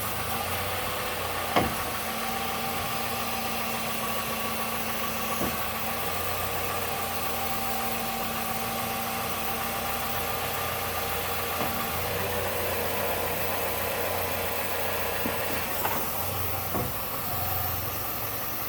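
2015 Nissan NV200 engine idling steadily while the steering wheel is turned, with a few sharp clicks from the front end, the loudest about a second and a half in. The noise being chased shows up when turning and is suspected to come from the CV axles.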